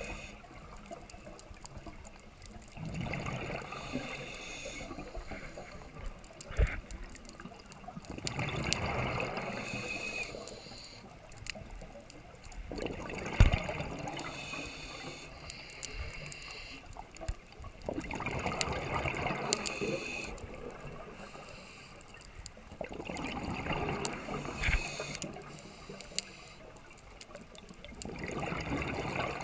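Scuba regulator exhaust bubbles recorded underwater: a bubbling rush with each exhale, about every five seconds, six times. A few sharp clicks come between the breaths, the loudest about thirteen seconds in.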